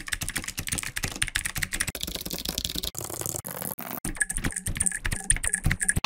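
Fast typing on a computer keyboard: a dense, rapid run of key clicks, thinning slightly about three to four seconds in.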